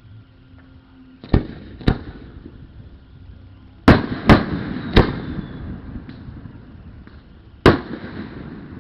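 Display fireworks bursting overhead: six sharp bangs, each trailed by a rolling echo. There are two bangs about a second in, a quick cluster of three around the middle, and one more near the end.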